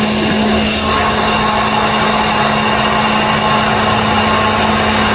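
A machine running: a loud, steady hum with a constant low tone and a fainter higher whine.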